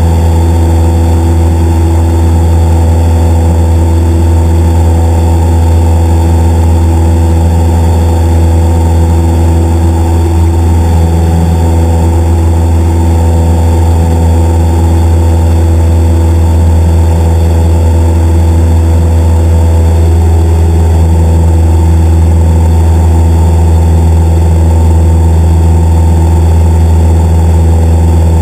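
Single-engine light aircraft's engine and propeller running steadily in flight, a loud, even drone heard from inside the cockpit.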